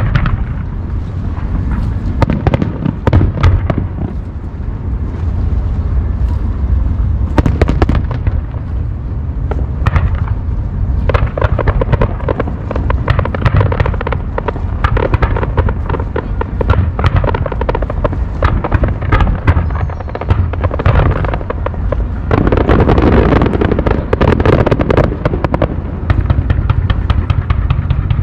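Aerial fireworks bursting in a dense, continuous barrage: rapid crackling and sharp bangs over a deep rumble of booms, densest about two thirds of the way through.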